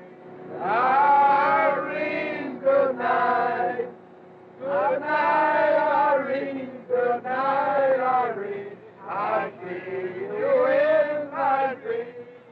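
A man singing unaccompanied in long held notes, his phrases broken by a short pause about four seconds in.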